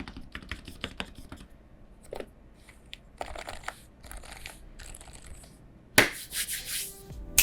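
Typing on a Realforce R3S keyboard with lubed Topre electro-capacitive switches: keystrokes come singly and in quick uneven runs, then a sudden louder burst of sound comes about six seconds in.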